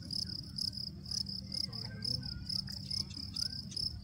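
An insect chirping steadily, a high-pitched pulse repeating about three to four times a second, over a low steady rumble.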